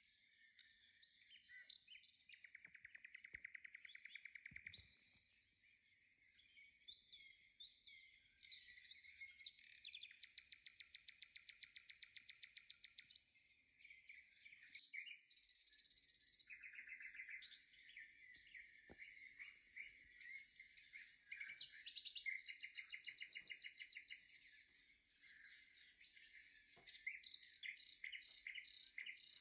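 Faint birdsong: birds chirping, with several long trills of rapid repeated notes.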